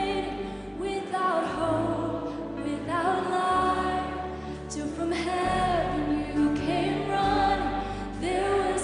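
A woman singing a slow worship-song melody into a microphone, accompanied by a live orchestra and piano, with long held bass notes that change every second or two beneath her voice.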